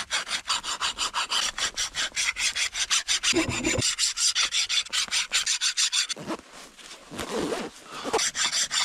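A hand file rasping in quick, even strokes, about four or five a second, while a knife is shaped. The strokes stop about six seconds in and start again near the end.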